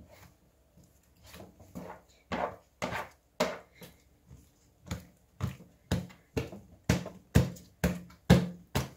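Sticky, butter-enriched panettone dough slapped against the work table by hand, kneaded without a mixer to work the butter in. About two slaps a second, starting softly a second or so in and getting louder.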